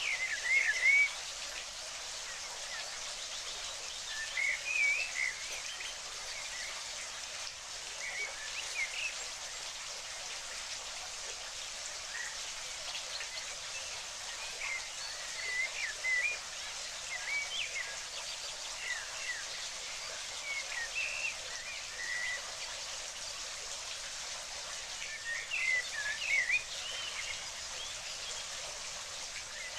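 Steady hiss of running water with a small bird chirping over it in short bursts of quick high notes every few seconds. The chirp bursts are the loudest sounds.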